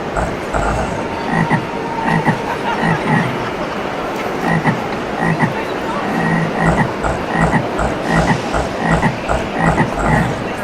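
Frogs croaking: short croaks repeating about once or twice a second over a steady background noise.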